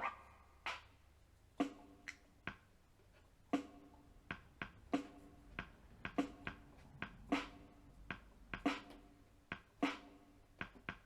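DEK 610P electronic keyboard's drum-kit voice played key by key through its built-in speakers: a string of separate drum hits, irregularly spaced at about two a second, some with a short pitched ring.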